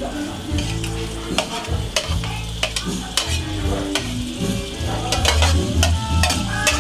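Sliced onion, tomato and chilli scraped off a plate into hot oil in a wok and sizzling, with a dozen or so sharp, irregular clinks of the spatula against the plate and the wok.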